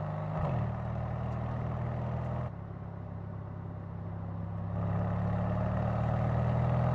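Mercedes-AMG C63 S Coupe's twin-turbo V8 running at a steady, light-throttle cruise, a deep even engine note. It drops away suddenly about two and a half seconds in and swells back louder in the last couple of seconds.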